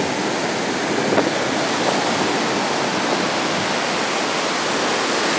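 Rough ocean surf washing steadily onto the beach.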